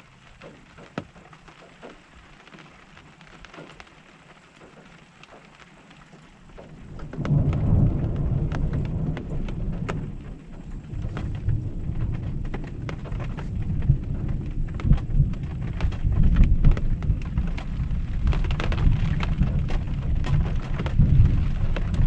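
Raindrops tapping on an RV roof. About seven seconds in, a long roll of thunder comes on suddenly and keeps rumbling deep and loud, swelling and easing, while the drops go on tapping.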